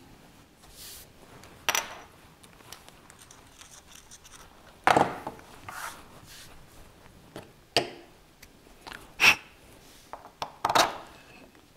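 Handling noises from a tap wrench and 3D-printed plastic parts on a wooden workbench: about five separate clicks and knocks as tools and parts are put down and picked up, with faint rubbing as a printed sleeve is screwed onto its tapped shaft.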